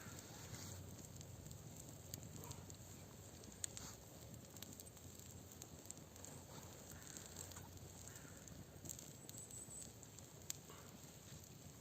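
Campfire crackling faintly, with a few scattered sharp pops.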